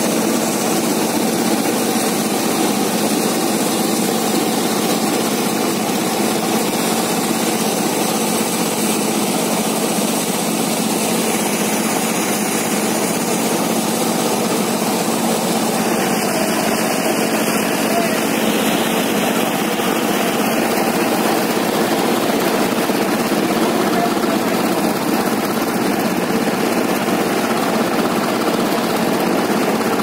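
Small portable wheat thresher running steadily under load as wheat sheaves are fed into its drum, with a constant, even machine drone.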